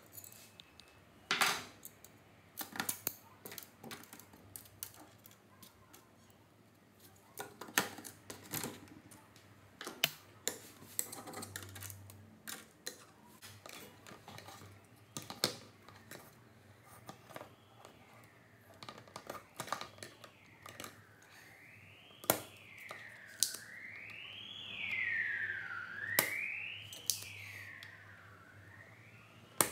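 Metal hand tools clicking and tapping on an LCD monitor's power supply board as its failed capacitors are being removed. From about halfway on, a tone sweeps up and down every second or two alongside the clicks.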